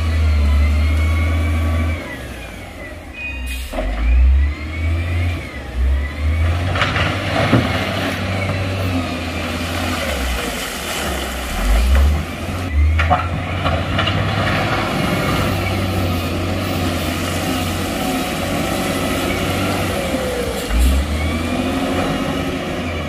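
Heavy diesel earthmoving machinery working: a deep engine rumble that rises and falls as it revs under load, with a few sharp knocks, about three and a half, seven and a half, and thirteen seconds in.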